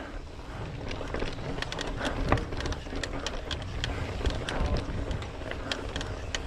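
Intense 951 mountain bike rolling over flagstone rock trail: tyres drumming on the stone slabs, with many irregular sharp clicks and rattles from the bike over the joints and edges, and a low rumble underneath.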